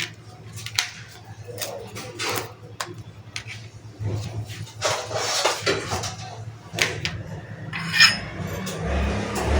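Hard objects being handled: a string of clicks and knocks with a few longer scraping or rubbing noises, and a steady low hum coming in about four seconds in.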